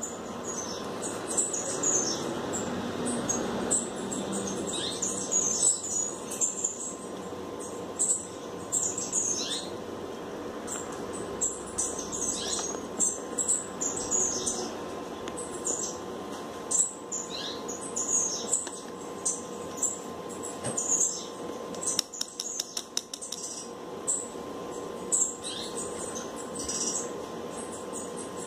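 Small birds chirping over and over, short quick falling chirps throughout, over a faint steady hum.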